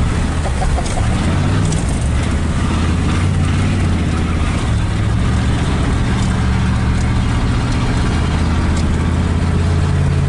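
Pickup truck engine running at a steady low drone as it drives a muddy dirt road, its pitch shifting up and down a little a few times, with a steady hiss of tyre and road noise over it.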